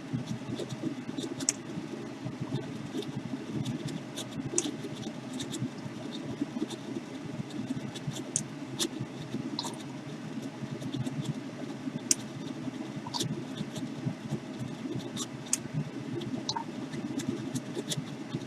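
Spray booth fan running, sucking air through its filter with a bubbling, fluttering sound, with scattered faint light clicks over it.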